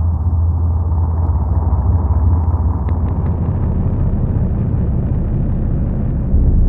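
Noise-drone music: a dense, muffled, steady low rumble with a few faint clicks about three seconds in, growing a little louder near the end.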